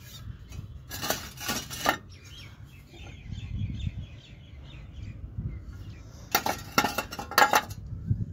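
Two clusters of sharp clinks and knocks from hard objects striking one another, one about a second in and another about six seconds in, over a low rumble.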